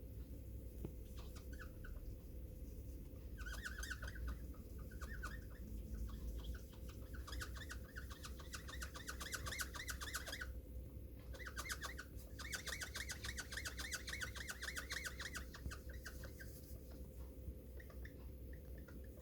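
Paper wiping the glass of a phone LCD with acetone, squeaking in quick strokes during three stretches, over the steady hum of an air-cleaning machine.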